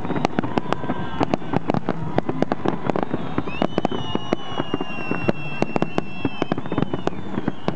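Fireworks display: a rapid, dense run of bangs and crackles as aerial shells burst into crackling star clusters. A long high whistle rises in and holds from about three and a half seconds in until six and a half.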